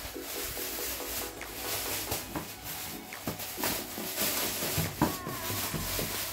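Thin plastic wrapping rustling and crinkling as it is handled and pulled off a packaged pedalboard, with a few sharp crackles.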